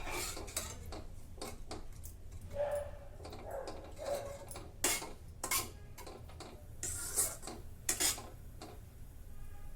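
A metal spoon clinking, tapping and scraping against a cooking pot in irregular strokes, as dal is stirred after salt has gone in, with a few louder knocks.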